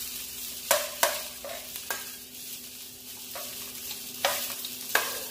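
Large shrimp sizzling in olive oil in a nonstick wok while a metal spoon stirs and turns them, the spoon clicking sharply against the pan about six times at uneven intervals. The shrimp are frying until golden.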